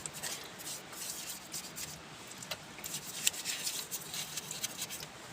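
Cloth wiping and rubbing over a motorcycle's surfaces: soft, irregular scratchy strokes with scattered small clicks and taps.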